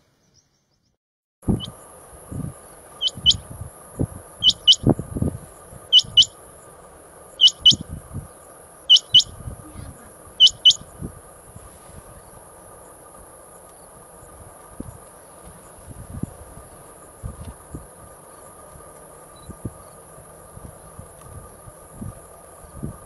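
Male rain quail calling: six loud double notes, about a second and a half apart, that stop about halfway through. Under them a steady high insect trill and scattered low thuds.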